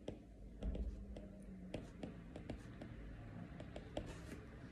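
Faint, irregular light clicks of a stylus tip tapping on a tablet's glass screen during handwriting.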